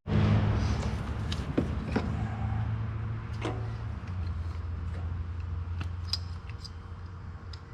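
Plastic clicks and light knocks of ignition coil packs and their connectors being handled and seated on the engine, over a steady low hum.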